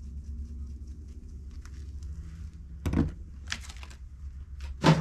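Countertop handling noises in a kitchen over a steady low hum: a knock about three seconds in, a few light clicks and rustles, and a louder knock near the end.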